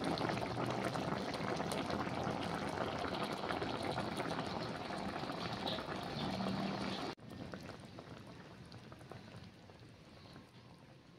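Creamy mushroom sauce with chicken pieces boiling hard in a pan, a dense steady bubbling. About seven seconds in it drops abruptly to a quieter simmer.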